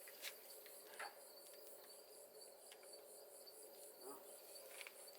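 Crickets chirping steadily in a fast, even rhythm, with a few faint clicks.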